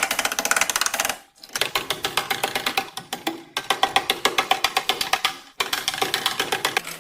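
Background music carried by a fast, even run of sharp percussive clicks, in three spells of about two seconds with brief breaks between them.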